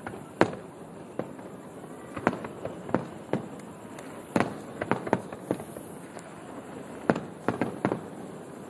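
Aerial fireworks shells bursting in a display: an irregular string of sharp bangs, about one a second, some coming in quick clusters, through a phone's microphone.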